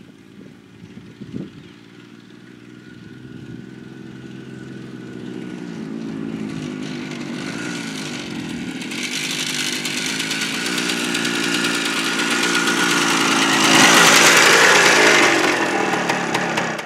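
Suzuki 400 two-stroke single-cylinder dirt bike running under way, approaching from a distance and passing close by, growing steadily louder and loudest near the end. The rebuilt engine is running and pulling the bike.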